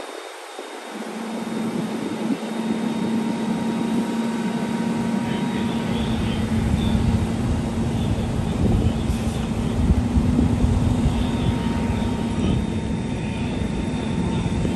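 A vehicle engine runs steadily with a constant hum, and a low rumble comes in about a second in and holds.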